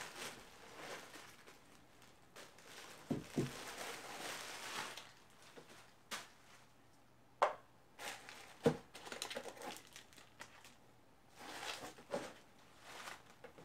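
Bubble wrap and plastic packaging crinkling as items are unwrapped and lifted out of a cardboard box, with a few short knocks as things are set down on the desk.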